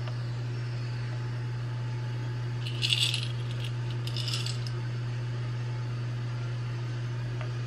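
Chocolate chips rattling in a small glass jar as they are shaken out, two short bursts about three and four seconds in, over a steady low hum.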